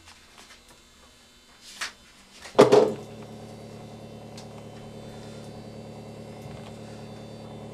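A sharp knock about two and a half seconds in, then a steady electrical hum.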